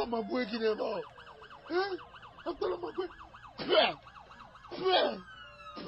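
Police siren in a rapid up-and-down yelp. A few short, muffled voices cut in over it, loudest about halfway through.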